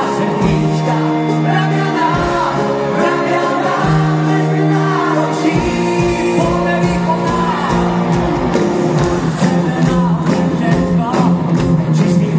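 Live pop-rock band playing a song with singing, the crowd shouting along; the drums come in fully about halfway through.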